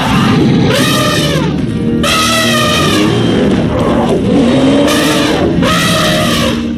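Elephant trumpeting calls used to voice a woolly mammoth: about four loud blasts, each rising and then falling in pitch. Background guitar music plays under them.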